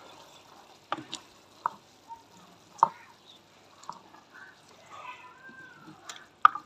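A long-handled ladle knocking and scraping against a clay handi while kachnar buds and peas are stirred into the minced meat: a run of irregular sharp knocks over a low simmering hiss, with the loudest knocks near the middle and just before the end.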